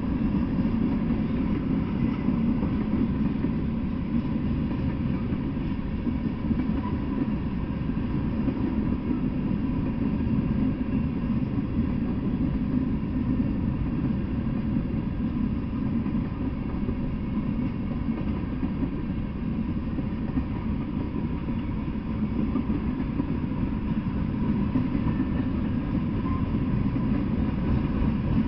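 Freight train rolling past: a steady, low rumble of covered hoppers, boxcars and tank cars on the rails.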